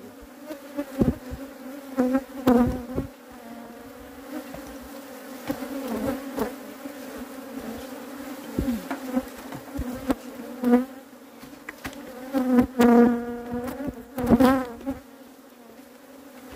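Honeybees buzzing steadily around the hives. Three louder buzzes rise and fall in pitch in the last third as bees fly close past, with a few short knocks early on.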